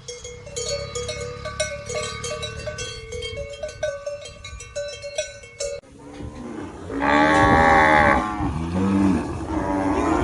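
Cowbells clanking irregularly, several strikes a second with a ringing tone. After an abrupt cut, a cow moos loudly once, followed by further lower calls.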